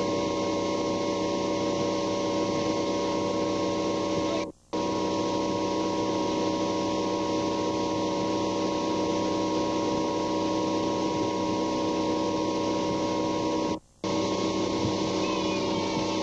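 Motorboat engine running at a steady towing speed, a constant drone mixed with wind and water noise. The sound cuts out twice for a moment, about four and a half seconds in and near fourteen seconds.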